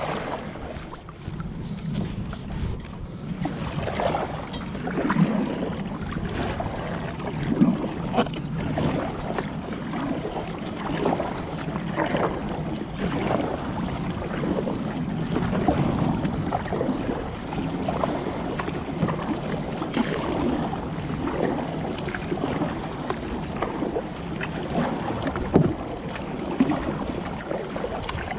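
Water lapping and slapping against a kayak's hull in irregular small splashes, with wind buffeting the microphone.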